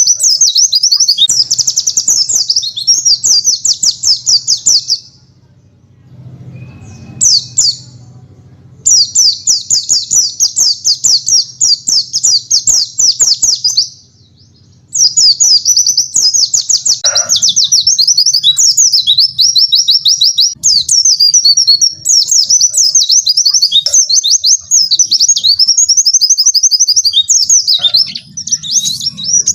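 A pleci (white-eye) singing long, fast canary-style trills of rapid-fire high notes, known as 'tembakan'. The song comes in loud runs of several seconds, with two short breaks.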